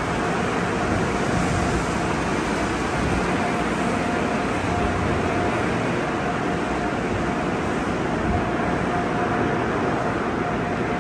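Sonny's conveyor car wash tunnel in operation: spinning cloth wash brushes, water spray and equipment motors make a steady, even noise, with a faint whine that comes and goes.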